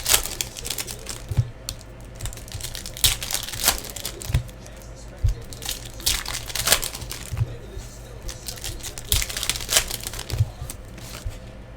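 Foil trading-card pack wrappers crinkling and tearing as packs are ripped open, in several short bursts a few seconds apart.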